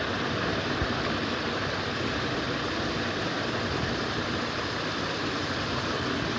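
Steady, even background hiss with no speech: the recording's noise floor.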